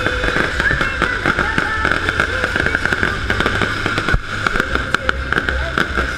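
Fireworks going off in a dense, rapid crackle, with a heavier bang about four seconds in.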